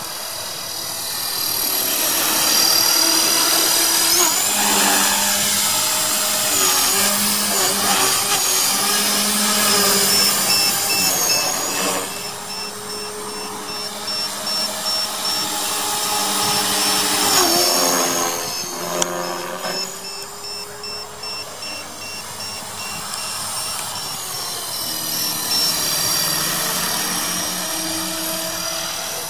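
Electric 450-size RC helicopter (HK450 V2 with a Turnigy SK3 2839 3600KV brushless motor) in flight: a high whine of motor, gears and rotor blades that rises and falls in pitch and loudness as it manoeuvres, with sharp pitch swoops around four to seven and seventeen to nineteen seconds in.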